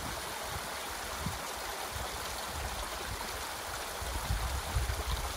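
Water rushing steadily down an old wooden flume and pouring off its end onto rocks.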